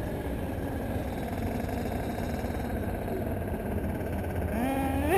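Small Force .21 nitro engine of an RC buggy idling steadily, heard close through the onboard microphone, with a quickly rising note near the end.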